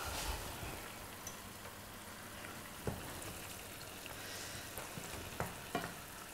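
Mushrooms sizzling steadily in a frying pan as they are stirred with a wooden spoon. The spoon knocks lightly against the pan a few times in the second half.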